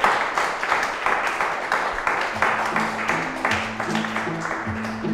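Applause: many hands clapping in a dense, irregular patter. About two seconds in, soundtrack music enters underneath with low sustained notes.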